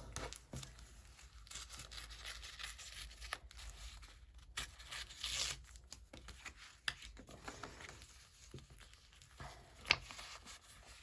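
Paper being torn by hand in a series of short, irregular rips, with paper rustling between them and a sharp click near the end.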